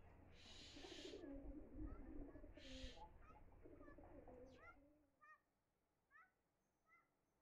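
Faint bird calls: low wavering calls and two bursts of hiss over a low rumble in the first few seconds. The rumble fades about five seconds in, leaving several short rising chirps.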